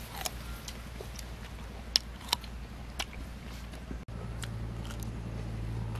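Crisp crunches of teeth biting into and chewing a raw green guava, several sharp ones in the first three seconds. From about four seconds in, a steady low hum takes over.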